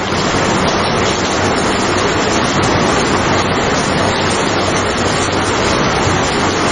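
Steady rain falling, an even, dense hiss of water with no pauses or claps of thunder.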